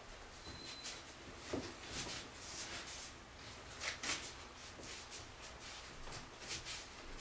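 Soft, irregular shuffling and rustling of people moving on foot, with no speech or music.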